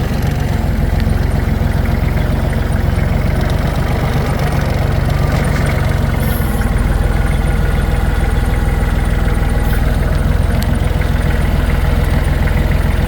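Tractor engine running steadily under load, heard from the driver's seat.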